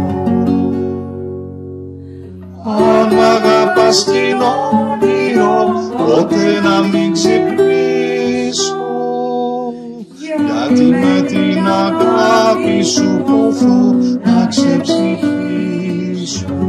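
Acoustic guitar playing an instrumental passage: a chord rings and fades at the start, then runs of plucked and strummed notes, a brief break about nine seconds in, and the playing resumes.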